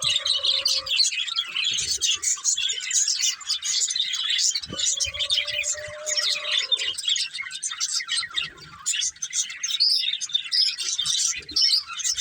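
Budgerigars chattering: a dense, continuous stream of rapid high chirps and warbles, with a steady lower note held for about two seconds a little before the middle.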